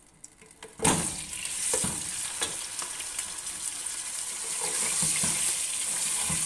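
Raw chicken pieces dropped into hot cooking oil in a pot: a sudden loud sizzle starts just under a second in and keeps up steadily as the meat fries, with a few light knocks as the pieces are stirred.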